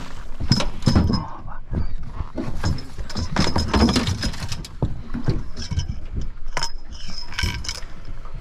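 A German shorthaired pointer whining in high-pitched bursts, with a short pitched whine near the end, over knocks and clinks of a landing net and gear being handled on the boat.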